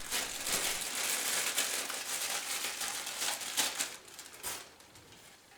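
Plastic packaging crinkling and rustling as it is handled, dying away about four seconds in after a last brief rustle.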